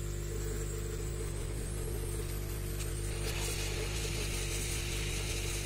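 Hot air rework gun blowing steadily, a low hum with an even hiss that grows brighter about three seconds in, as it heats a shorted MOSFET on the motherboard to desolder it.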